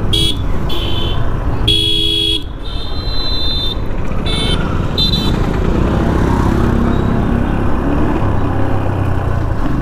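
A motorcycle on the move in town traffic, with a steady road and wind rumble. Vehicle horns honk about six times in the first five seconds or so, mostly short toots, two of them held for about a second.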